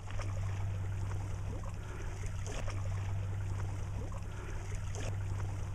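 A steady low hum under a faint wash of water-like outdoor noise, with a few faint short chirps.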